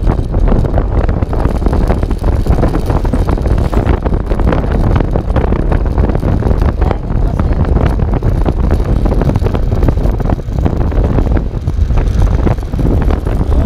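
Heavy wind buffeting on the microphone of a motor scooter cruising at about 45 km/h, with the scooter's engine and tyre noise running steadily underneath.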